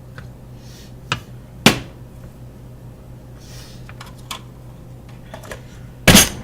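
Kitchen handling sounds: a few sharp knocks and clicks of things being set down or moved, two soft swishes, and a louder thump near the end, over a steady low hum.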